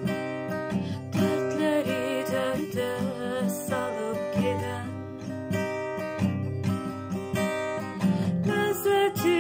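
Acoustic guitar with a capo on the neck, strummed, and a woman singing over it from about a second in, her voice wavering on held notes.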